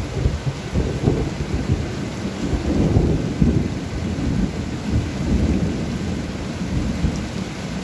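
Thunder rolling over steady rain: a sudden low rumble that swells repeatedly, loudest in the first three seconds, then slowly eases.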